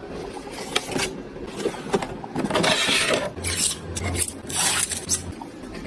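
Handling noise: scraping and rubbing with scattered sharp clicks, and a low hum for about two seconds in the middle.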